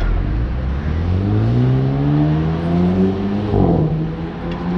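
Jaguar F-Type sports car accelerating hard, its engine note climbing steadily for about three seconds. Then comes a short crackle at an upshift, and the pitch drops to a lower, steady note.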